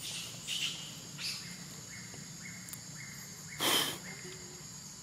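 Insects chirring in a steady high-pitched drone, with a few faint short calls and one louder brief burst of noise about three and a half seconds in.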